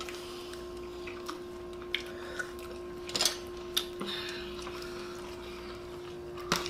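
Crab and crawfish shells being cracked and picked apart by hand at a table, with wet crackling and a few small clicks and knocks of plates and shells around three to four seconds in. A steady hum runs underneath.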